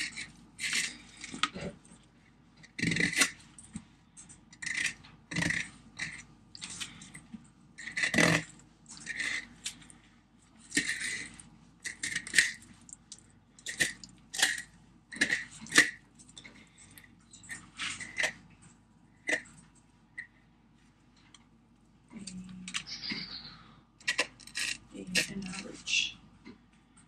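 Fillet knife cutting along a northern snakehead's scaly skin and flesh on a plastic cutting board: short scraping strokes, about one a second, with a brief pause a little after two-thirds of the way through.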